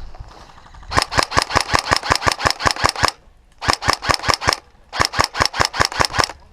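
Airsoft electric gun firing three rapid strings of shots, about ten a second, with short pauses between them.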